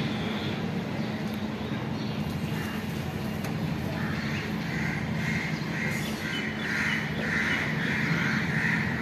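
A bird calling in a quick repeated series, about two calls a second, starting about four seconds in and growing louder, over a steady low hum.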